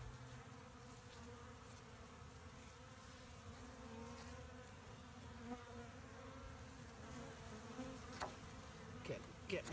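Honeybees buzzing at a hive entrance under a robbing attack: a faint, steady hum, with the pitch of single bees flying close wavering now and then. A light click comes about eight seconds in.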